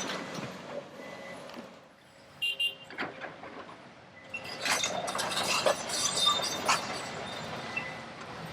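Hydraulic excavator working demolition debris: clanks and knocks of metal and rubble over the machine's running noise, densest in the middle of the stretch. A short high beep sounds about two and a half seconds in.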